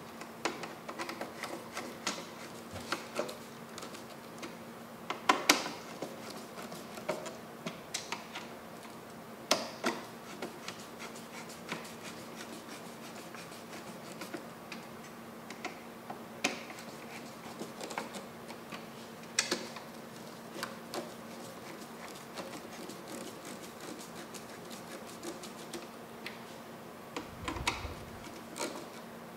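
Irregular light clicks and ticks of a hand screwdriver turning screws into a radiator mount on a metal PC case, with a dull bump near the end.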